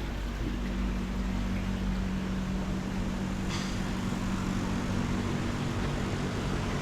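Steady low mechanical hum of running equipment with an even hiss over it, and one brief click about three and a half seconds in.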